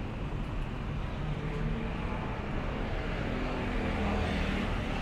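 City road traffic: cars and vans driving past, a steady engine and tyre rumble with one engine's note rising through the middle.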